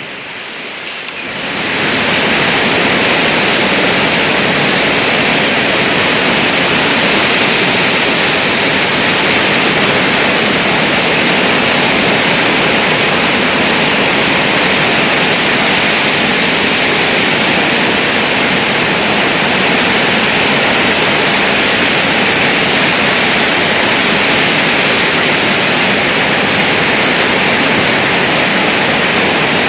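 Heavy rain falling with a steady, loud hiss; it swells sharply about a second and a half in, then holds even.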